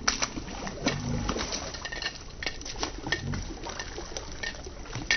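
Barramundi splashing and thrashing at the water's surface: a run of sharp splashes and slaps, with a few low humming sounds underneath.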